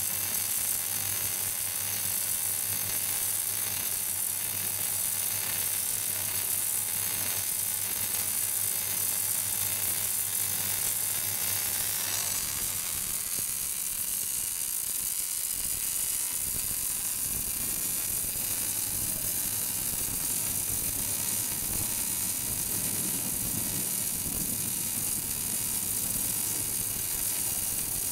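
Automatic MIG welding arc running steadily as it lays a root pass on steel pipe. A low hum under it stops about twelve seconds in, where the sound changes.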